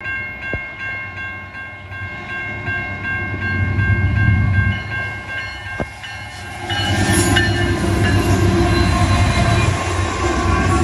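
Grade-crossing warning bell ringing steadily over the low rumble of approaching diesel locomotives. About seven seconds in, the lead Norfolk Southern locomotives reach the crossing and their engine and wheel noise takes over.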